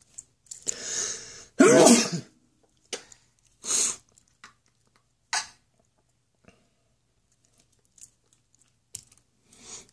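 A person coughing and clearing their throat: a few short, harsh bursts, the loudest about two seconds in, with smaller ones after.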